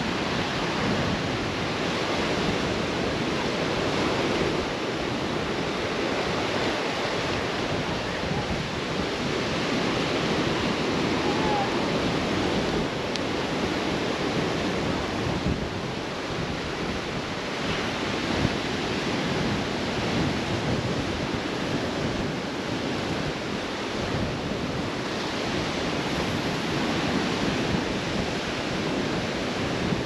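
Sea surf breaking on rocks, mixed with steady wind, and gusts buffeting the microphone.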